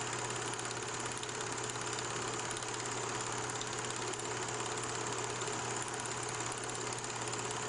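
An engine idling steadily, with a fast, even pulse over a constant low hum.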